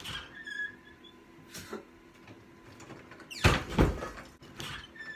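A door being opened and shut: a few soft knocks and rattles, then a louder double thud about three and a half seconds in.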